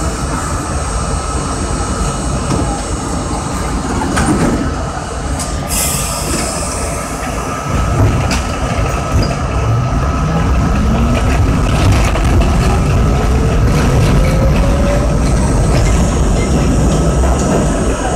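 R32 subway train heard from inside the front car. It idles at the platform, then pulls out: the wheel-and-rail rumble grows about eight seconds in, and the traction motors give a whine that rises steadily in pitch for about five seconds as the train accelerates.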